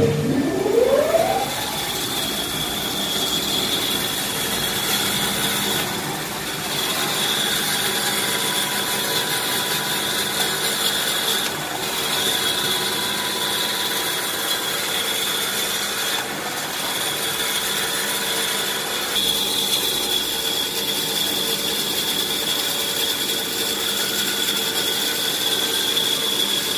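Hand towel cutting and bagging machine starting up, its motor whine rising in the first second or so, then running steadily with a constant high whine over mechanical running noise.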